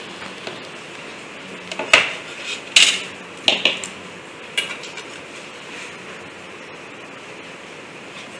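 Small metal parts and a sheet-metal robot chassis plate with DC motors mounted on it, clinking and knocking as they are handled and set against the wooden table: a handful of sharp clinks between about two and five seconds in, then only a steady low hiss.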